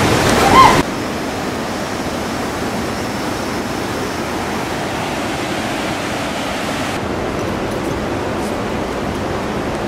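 Steady rushing of white-water river rapids, an even noise with no clear pitch. A short rising tone cuts off within the first second.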